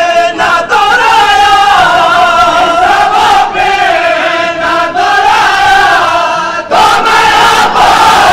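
A noha, a Muharram lament, chanted loudly by a crowd of male mourners in long, wavering held notes, with a short break about two-thirds of the way through before it starts again.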